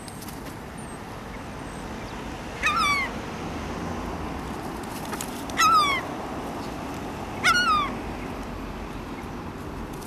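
Gulls calling: three short, loud cries, each falling in pitch at its end, about three, five and a half and seven and a half seconds in, over steady background noise.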